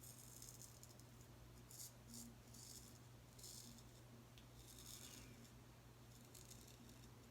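Faint, short scraping strokes of a Boker Tree Brand straight razor cutting lathered stubble, about eight strokes spaced unevenly, over a low steady hum.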